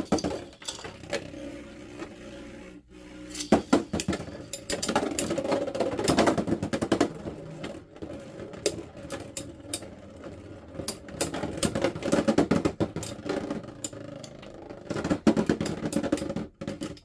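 Beyblade X spinning tops clashing in a plastic stadium: a steady spinning hum under rapid, irregular sharp clacks as the tops hit each other and the stadium walls.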